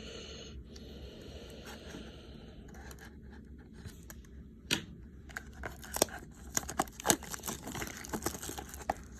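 Trading card pack wrapper being torn open and crinkled, with soft rustling at first and then a run of sharp crackles and clicks over the last few seconds.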